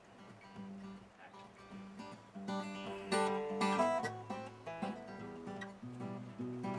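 Intro music: plucked acoustic guitar playing a picked melody, growing louder about two and a half seconds in.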